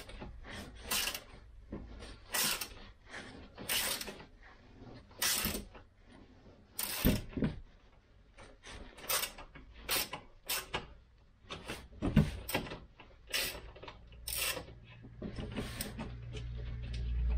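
Hand tool working a screw in a car's plastic undertray: irregular clicks and scrapes, a few a second. A low rumble rises near the end.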